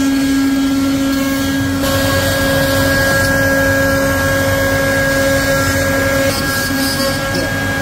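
CNC wood-carving router running, its spindle whining steadily as the bit cuts a design into a wooden block. The whine jumps higher in pitch about two seconds in.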